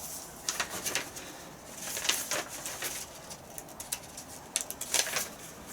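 Pages of a paper instruction booklet being flipped and handled: a run of short, crisp rustles and ticks, with a longer rustle about two seconds in.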